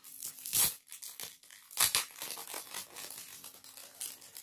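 Clear cellophane bag being opened by hand: plastic crinkling and rustling, with two sharp, louder crackles, about half a second in and again just before two seconds.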